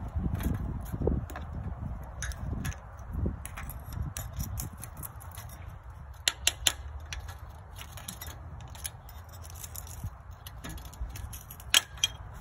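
Light metallic clicks and clinks of sickle-bar knife sections and hand tools being handled while blades are changed, with three sharper clicks about six seconds in and two more near the end, over a steady low rumble.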